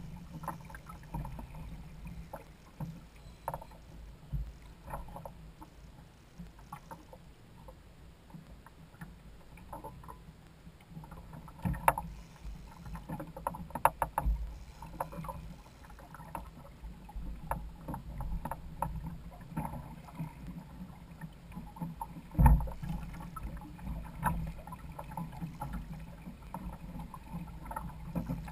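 Water sloshing against the hull and outrigger floats of a Hobie Adventure Island sailing kayak under way, with scattered knocks and clicks from the boat and fishing gear.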